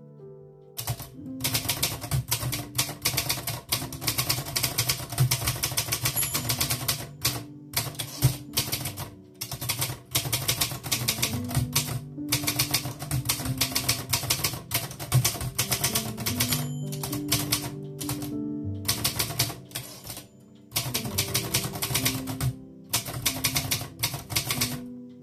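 A 1949 Erfurt (Olympia) Progress manual typewriter being typed on: runs of rapid key strikes with brief pauses between them. Background music plays underneath.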